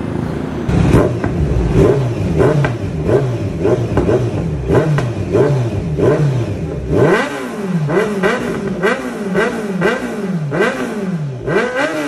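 Kawasaki Z900's inline-four engine through a large Villain C36 exhaust, revved in quick repeated throttle blips. The pitch rises and falls about twice a second, starting about a second in.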